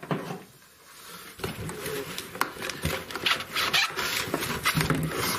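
Crackling and rustling of packaging with small knocks and clicks as the parts of a diesel heater kit are unpacked and handled, starting about a second and a half in.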